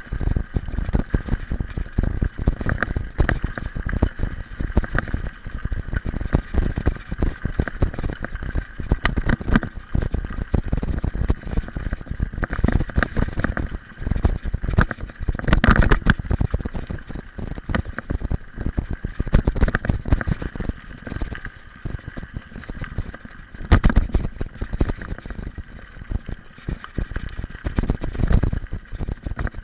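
Mountain bike rolling over a loose gravel road: the tyres crunch on the stones, and the bike and its camera mount rattle and knock over the bumps. There are bigger jolts about halfway through and again later on.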